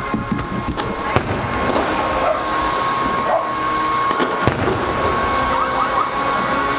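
Fireworks display: aerial shells bursting with sharp bangs, the loudest about a second in and again past four seconds, over a continuous din of smaller bursts and crackle. A steady high tone runs underneath.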